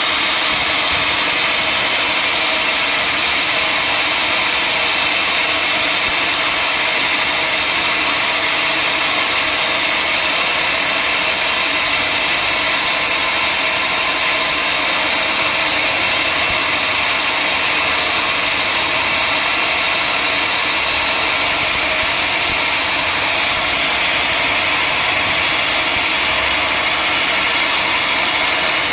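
Sawmill machinery running steadily, a loud, even mechanical noise with no breaks.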